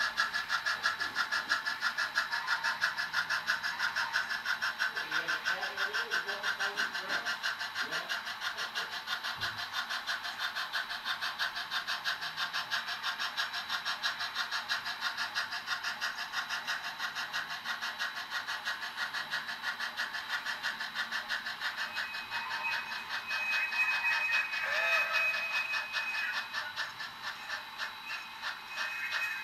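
HO-scale model geared steam locomotive running along the track, a fast, even beat of chuffing and mechanical clatter that continues steadily throughout.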